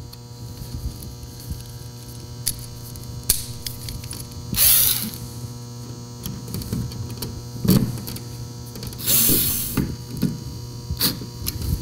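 A steady electrical hum runs throughout. Over it come scattered clicks and two short scraping, creaking bursts, about four and a half and nine seconds in, as a screwdriver drives the mounting screws that draw a plastic outlet box snug into a drywall cutout.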